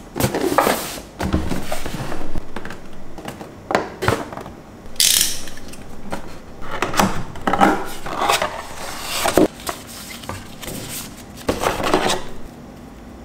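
Hands handling a cardboard camera box: irregular scrapes, knocks and rustling of cardboard as the seal is broken and the lid and inner flaps are opened. A louder hissing scrape comes about five seconds in.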